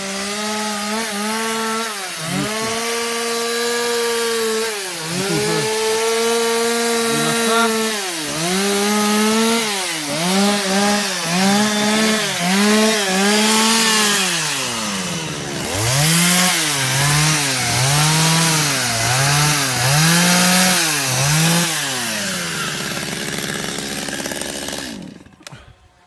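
Two-stroke chainsaw cutting into a log on top of a log-house wall, its engine note rising and dipping over and over as the chain bites and eases off. It stops about a second before the end.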